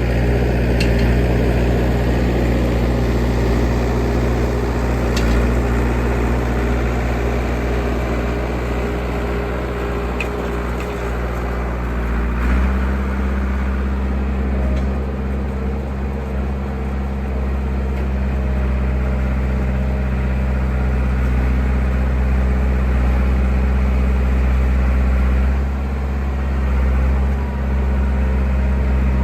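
Diesel engine of a John Deere 450B crawler bulldozer running steadily. Its engine speed steps down slightly about twelve seconds in.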